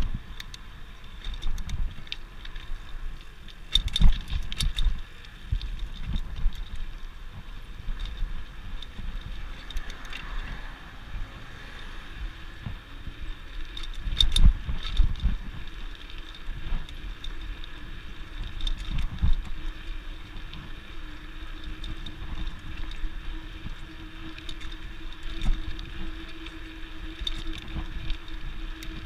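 Bicycle rolling along a concrete sidewalk: steady tyre and wind noise, broken by thumps and rattles as the wheels cross joints and cracks, the loudest about 4 and 14 seconds in.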